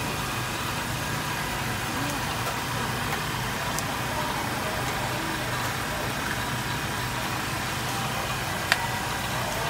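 Steady mechanical hum of a running engine, even and unchanging, with one sharp click near the end.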